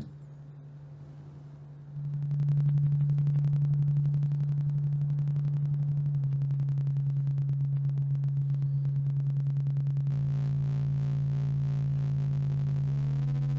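Low synthesizer tone from the Moog Model 15 iPad app: a sine wave passed through a voltage-controlled amplifier whose control input is driven by a rectangular wave, chopping it into a fast pulsing pattern. It gets louder about two seconds in and turns buzzier, with added overtones, after about ten seconds.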